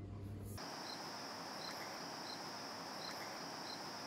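Crickets chirping: a steady high trill, with a separate short chirp repeating about every 0.7 seconds.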